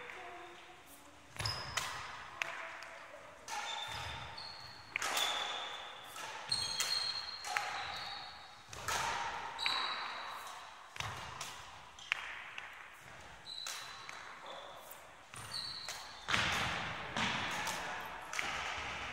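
Badminton racket striking shuttlecocks during net-drop practice, a sharp tap about every second or two, each one echoing in a large sports hall. Short squeaks of shoe soles on the court floor come between the hits.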